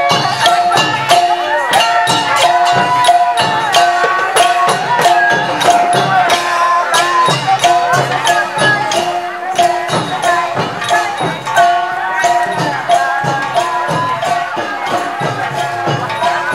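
Lively festive music with a fast, steady beat of percussion hits and shaken rattles under a held tone, with voices and a crowd over it.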